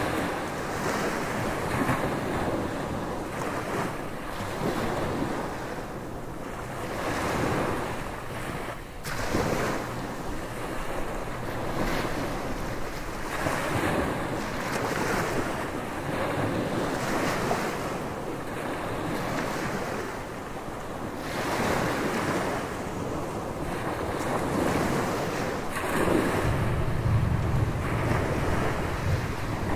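Ocean surf breaking and washing up a beach in repeated surges, with wind buffeting the microphone and a heavier low rumble of wind near the end.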